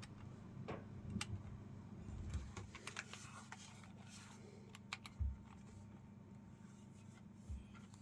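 Typing on a Keychron Q6 HE keyboard with Gateron double-rail magnetic Hall-effect switches: irregular keystroke clicks, dense in the first half and sparser later. Two low thumps come about five seconds in and again near the end.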